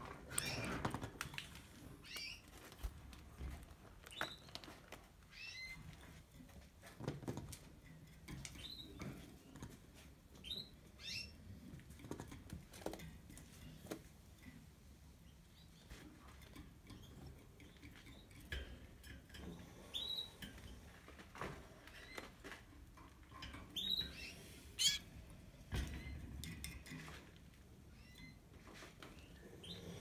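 Domestic canaries giving short high chirps, scattered a second or two apart, with a few soft taps and rustles in the cage.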